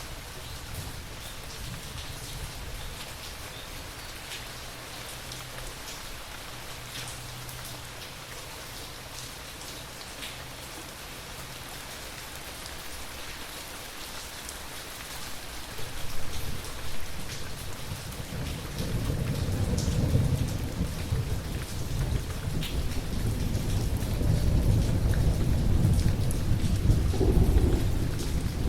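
Steady rain falling with scattered drops ticking, and a low thunder rumble that comes in about halfway and grows louder toward the end.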